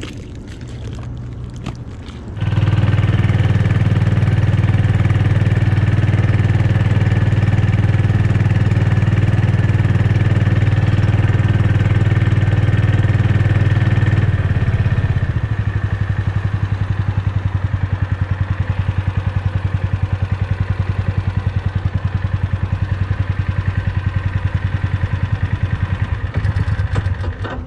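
Small fishing boat's engine idling, then opened up about two seconds in and running steady under way. About halfway through it is throttled back to a lower, pulsing run as the boat slows to anchor, dropping away near the end.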